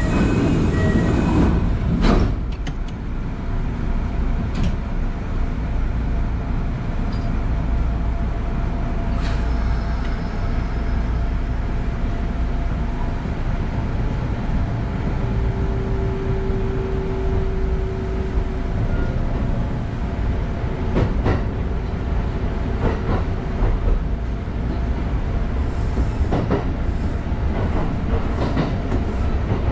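Kintetsu Ikoma Line electric train running, heard from inside the driver's cab: a steady rumble of wheels on rails, with a sharp click now and then. A steady hum rises for a few seconds about halfway through.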